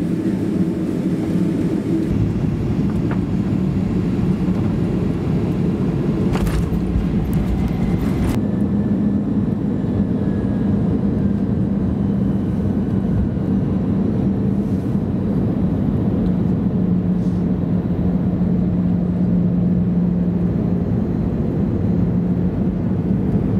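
Jet airliner cabin noise: a steady drone of engines and airflow with a low hum underneath. A brief click comes about six seconds in, and about eight seconds in the sound changes abruptly, the hiss thinning.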